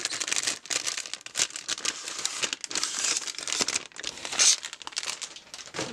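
Clear plastic wrapping crinkling and rustling in a dense run of crackles as a Spellbinders BetterPress press plate is handled and drawn out of it.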